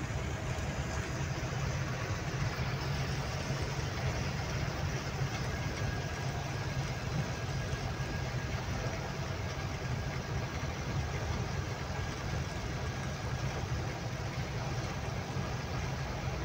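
Truck engine running at a steady low drone while driving, with road noise, heard from inside the cab.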